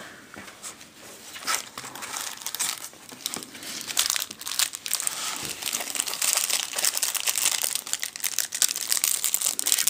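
Plastic packaging crinkling in the hands: a pen in a thin clear plastic sleeve and its cardboard box and foam packing being handled and unpacked. Irregular crackles that get busier after about a second and a half.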